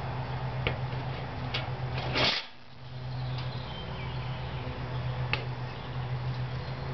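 A chipmunk moving about inside a wire live trap: a few sharp clicks and a brief louder rustle about two seconds in, over a steady low hum.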